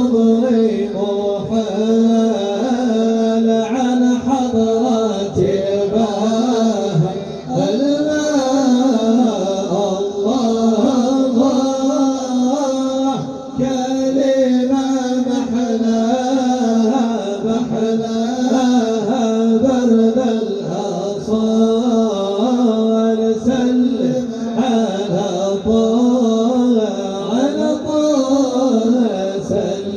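Arabic devotional song in praise of the Prophet (madih nabawi): voices singing a long, drawn-out melody over a steady held low note.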